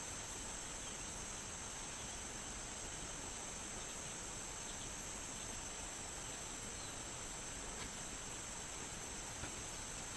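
Steady high-pitched drone of forest insects, over an even background hiss, with a few faint clicks.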